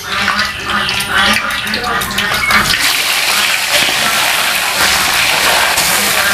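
Hot oil in a wok deep-frying mullet: bubbling and crackling at first, then a dense, steady sizzle from about three seconds in as a fresh batch of raw fish goes into the oil.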